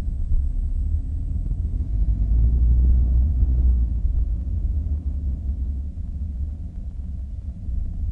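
Onboard sound of a Losi 22 RC buggy driving fast on asphalt, heard from a camera strapped to its chassis: a heavy, steady low rumble of wind and road vibration, loudest about two to three seconds in. A faint high whine stops about two seconds in.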